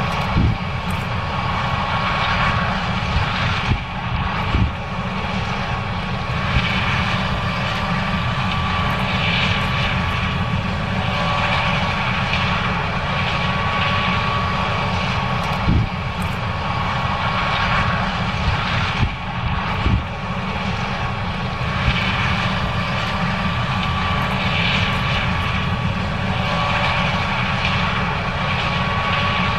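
John Deere S770 combine running steadily while harvesting corn: a constant machine drone with a steady high whine over it, and a few short knocks here and there.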